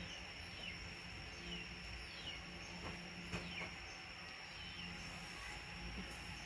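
Quiet background: a steady faint hiss with a thin high-pitched whine, a few faint short falling chirps, and a couple of soft ticks.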